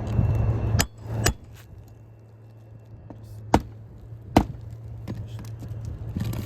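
Four sharp knocks of a roofing hand tool on a shingle roof, two close together near the start and two louder ones in the middle. A low hum runs underneath and fades about a second in.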